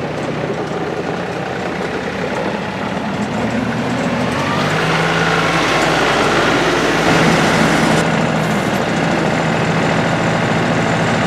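The 3-cylinder diesel engine of a New Holland Workmaster 40 tractor running steadily, then speeding up about four to five seconds in and holding at the higher engine speed.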